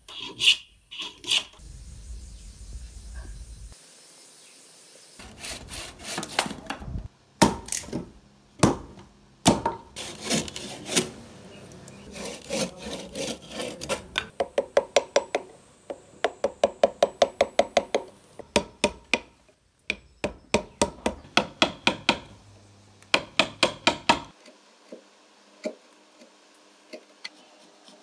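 Hand tools working a block of wood: separate scraping strokes, then a run of quick, even strokes, about three a second, as a frame saw cuts out the outline of a wooden toy car body. The last few seconds hold only faint small cuts from a carving tool.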